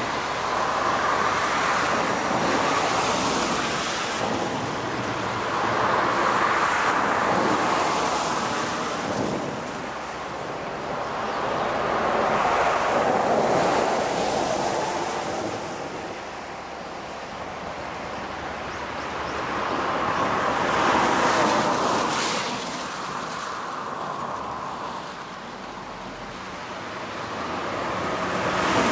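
Wind gusting, a rushing noise that swells and fades every several seconds.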